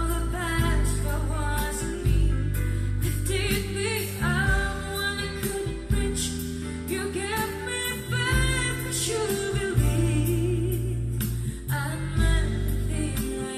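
Panasonic SB-PM770 loudspeakers playing a song: a singing voice over sustained bass notes.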